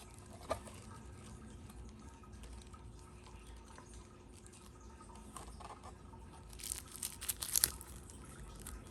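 Small handling sounds: a sharp click about half a second in, then a quick cluster of clicks and crinkles near the end, against a faint steady background.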